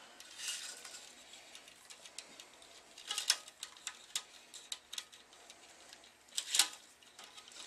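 Tennis string being woven by hand over and under the main strings of a racket on a stringing machine: light ticks of string against string, with a brief swish of string being drawn through about three seconds in and again about six and a half seconds in.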